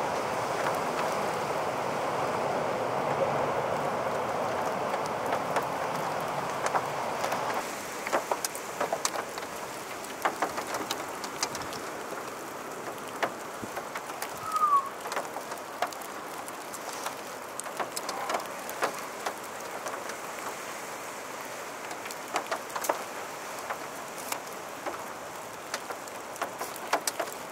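Roar of a violent EF4 tornado, a steady rushing noise for about the first seven seconds. It then drops away to a quieter wind hiss with scattered ticks of raindrops.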